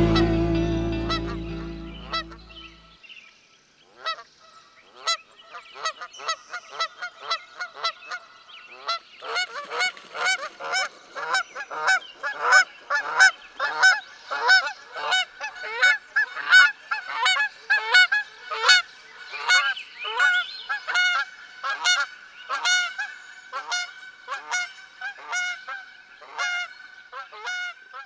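Music rings out and fades in the first two seconds or so. Then a flock of geese honks, the calls starting about four seconds in, growing into a dense run of overlapping honks, a couple a second, and thinning near the end.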